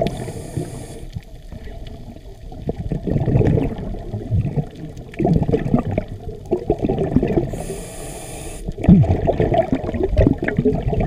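Scuba diver breathing through a regulator underwater: two short hissing inhales through the demand valve, one at the start and one about eight seconds in, with gurgling exhale bubbles in between.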